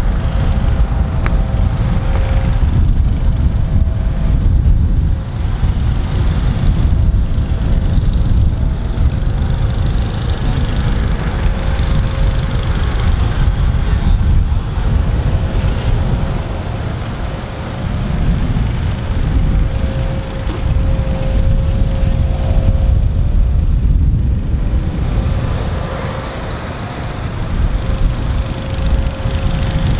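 Walk-behind greens mowers running steadily, their engine hum fading and returning, under a heavy, uneven rumble of wind on the microphone.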